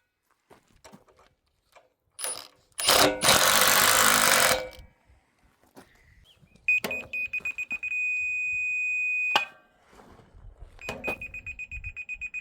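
A power tool runs loudly for about two seconds. Then a rotary laser level's receiver gives high-pitched rapid beeps, settles into one steady tone for about a second and a half, and goes back to rapid beeping. The rapid beeps mean the receiver is near the beam, and the steady tone means it sits on level.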